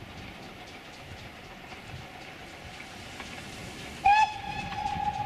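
Steam locomotive whistle sounding about four seconds in: one steady note, loudest as it starts and then held, over a faint background of the train running.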